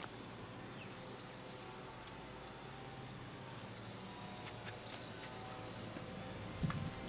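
Quiet outdoor ambience with a few faint, short bird chirps and scattered light clicks, and a soft low thump near the end.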